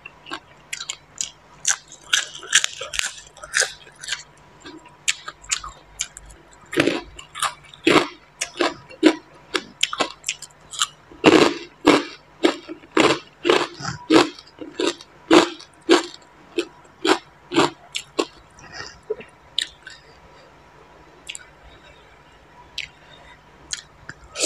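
A person chewing crunchy raw vegetables (a lettuce leaf and green papaya salad) close to a clip-on microphone: a steady run of crisp crunches, two or three a second, thinning out near the end.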